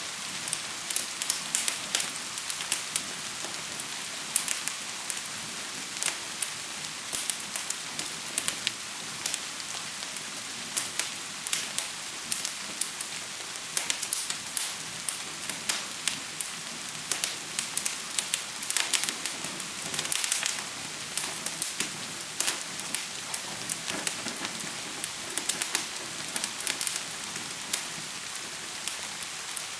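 Steady hiss of gentle rain mixed with a fire crackling, with frequent sharp pops scattered throughout.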